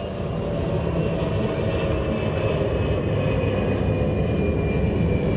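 Steady low rumble of a passing engine that swells in at the start and holds, with a faint high whine slowly dropping in pitch.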